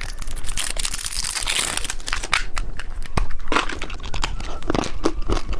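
Plastic candy wrapper crinkling and tearing as it is opened by hand, a steady stream of sharp crackles.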